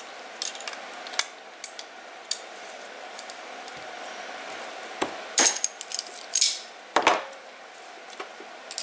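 Hand tools on a 6.0L Powerstroke fuel injector: a vise grip holding a T15 Torx bit and a screwdriver work the small top screws loose. There are light metal clicks and ticks, with a few louder metal clatters about five to seven seconds in as the tools are handled on the bench.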